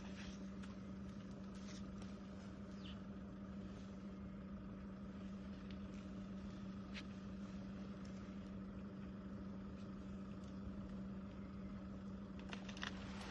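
Faint, steady low mechanical hum with a few weaker tones above it, and occasional faint ticks.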